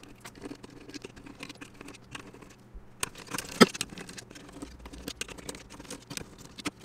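Scattered small clicks and taps of hands working a PC cooling fan off a 360 mm water-cooling radiator, with one sharper click about three and a half seconds in.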